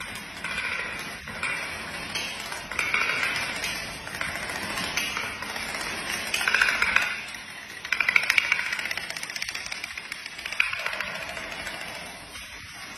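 Stood-up playing cards and other small flat pieces toppling one after another in a domino chain on a tiled floor: a rapid, continuous pattering clatter that swells and fades in several waves.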